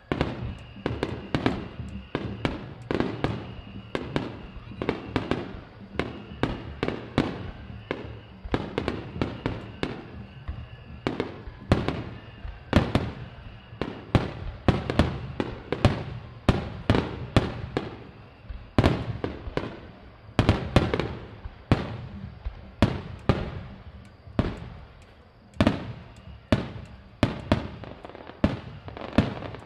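Extra-large star mine fireworks barrage: aerial shells bursting one after another, several bangs a second, each followed by a brief ringing echo.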